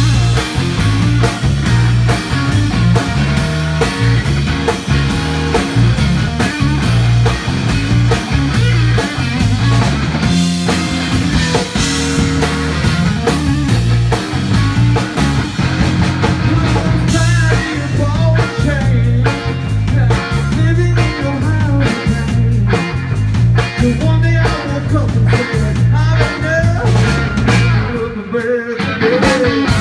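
Live blues-rock band playing, with electric guitars over drums and a steady bass line. From about halfway through, a lead line bends up and down in pitch above the band.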